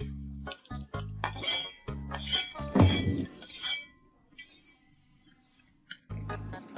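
A spoon clinking against a glass bowl several times as it stirs, the strikes ringing briefly. Background music with a steady bass beat runs under it, dropping out about four seconds in and returning near the end.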